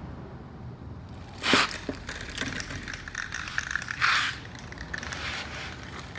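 Crinkling and scraping handling noise, with two short, loud rushes of noise about a second and a half in and again near four seconds.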